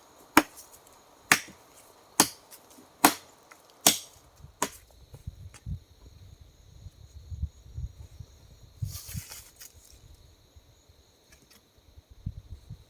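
Six sharp strikes of a tool chopping into wood, evenly spaced a little under a second apart, stopping about five seconds in. After that a steady high insect drone and a low gusty rumble of wind on the microphone.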